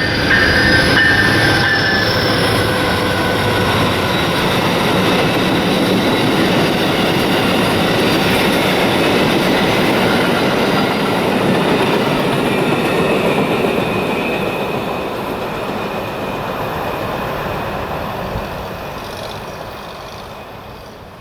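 Amtrak passenger train rolling past, with steady wheel-on-rail noise and clickety-clack. In the first several seconds a high, thin turbocharger whistle from the ALC-42 locomotive's Cummins QSK95 engine rises slowly in pitch as it works to bring the train up to speed. The whole sound fades away over the last several seconds as the train recedes.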